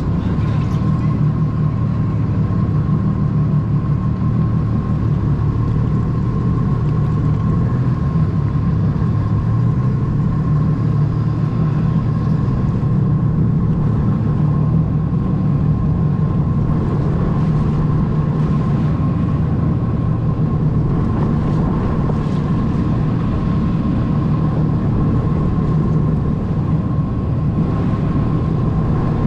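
Jet ski engine running steadily, a constant low drone with a thin steady whine above it.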